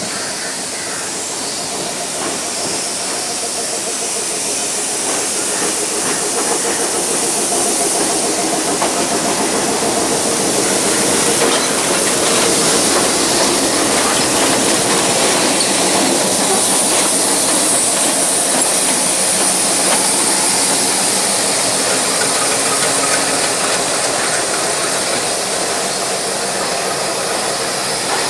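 Diesel power set (multiple unit) approaching slowly through station pointwork and drawing alongside, its engine running over a hiss and the sound of wheels on rail. It grows steadily louder over the first dozen seconds, then stays loud.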